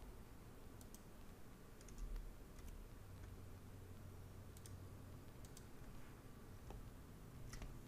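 Faint, scattered clicks of a computer keyboard and mouse while a value is typed and saved, over a low steady hum.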